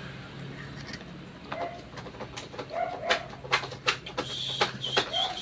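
A knife clicking and scraping against oyster shells as an oyster is pried open by hand, with shells knocking together; a few short bird calls sound in the background.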